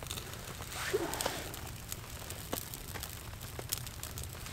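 Small campfire of birch bark and thin twig kindling crackling, with irregular sharp pops while sticks are laid on it.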